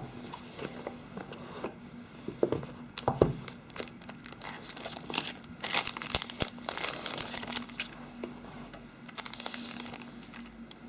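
Phone retail box and its packaging being handled and opened by hand: irregular crinkling and rustling with small knocks and clicks, busiest in the middle and again near the end.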